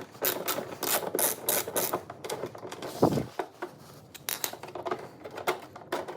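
Rapid, irregular clicking and rattling of a hand tool undoing a T20 Torx screw in the car's front bumper, with a short scrape about three seconds in.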